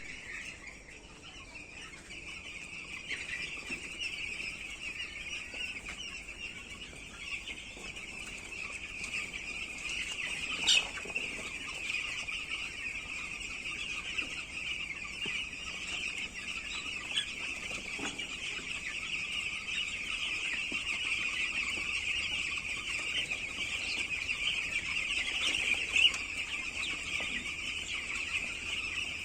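A large flock of broiler chickens calling all at once, a dense, unbroken chorus of high-pitched cheeping. Two sharp clicks stand out, one about a third of the way in and one near the end.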